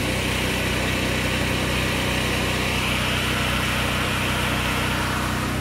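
Steady mechanical hum of a running motor, with an even hiss above it.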